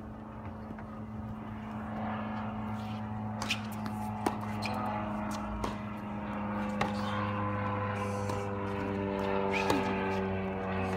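Tennis ball struck by racquets during a rally: sharp pops spaced a second or more apart. Under them runs a steady engine drone.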